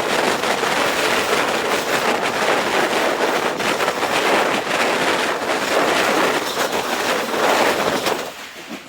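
Passenger train running along the track: a steady rushing rumble of wheels on rail. It fades away in the last second.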